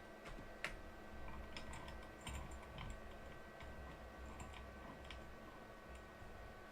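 A run of faint, irregular light clicks and taps over a low steady hum.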